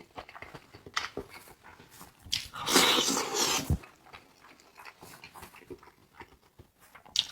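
Close-up eating sounds: wet chewing clicks scattered throughout, with one loud breathy slurp or rush of air lasting about a second, about three seconds in.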